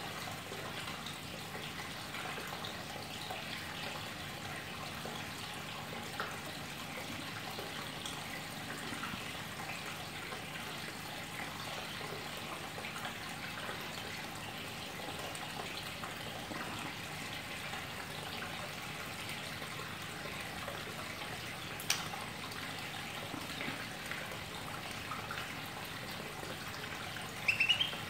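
Steady trickle of water under a caged white-rumped shama's soft, faint, scattered chatter (ngeriwik), with one sharp click about three-quarters of the way through. Near the end the bird breaks into louder rising whistled notes.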